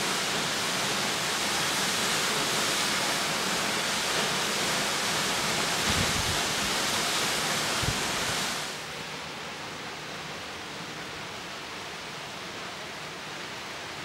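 Steady, loud rush of a tall waterfall plunging into its pool, heard close, with two brief low thumps about six and eight seconds in. About two-thirds of the way through it drops to a quieter, duller rush of the falls heard from farther off down a shallow creek.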